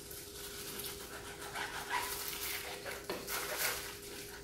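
Chef's knife sawing through a thick slab of raw beef on a cutting board: soft, breathy slicing strokes, several in a row.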